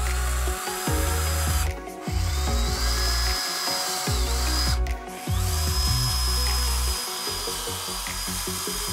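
Cordless drill/driver driving screws through a 3D-printed plastic stand into plywood, running in three bursts of a second or two each, the whine climbing as each burst starts; it stops about seven seconds in.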